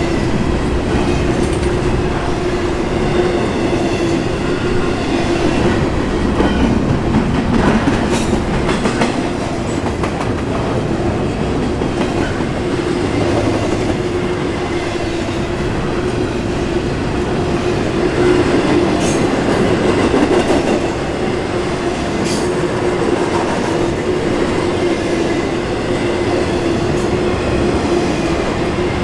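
Freight train of double-stack intermodal container well cars rolling past close by: a steady rumble and clatter of wheels on rail, with a steady low hum and occasional sharp clicks.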